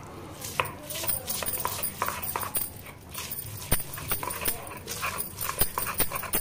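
Stone roller (batta) being pushed and rocked over a stone grinding slab (sil), crushing sliced onion into paste: repeated irregular stone-on-stone knocks with gritty scraping between them.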